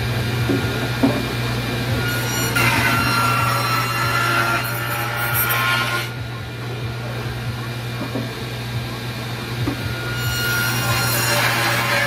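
Table saw running with a steady motor hum, its blade cutting into the wall of a wooden box twice: a pass from about two and a half to six seconds in, and another starting near the end. The box is turned between cuts, which are set shallow to leave a thin ribbon holding the lid on.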